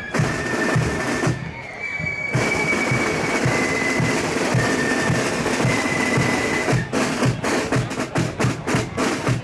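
Marching band drums playing: the bass drum beats steadily about twice a second under a few held high notes, and about seven seconds in, sharp drumstick clicks come in at about three or four a second.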